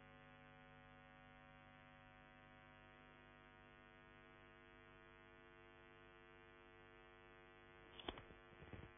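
Near silence: a faint steady electrical hum, with a few faint knocks near the end.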